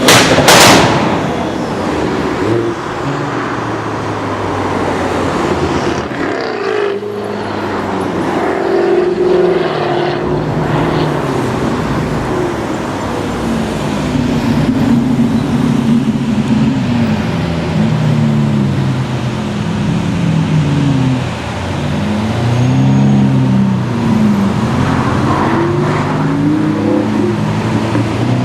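Supercar engine revving, its pitch rising and falling repeatedly, with a loud sharp burst about half a second in and a run of quick rev sweeps in the second half.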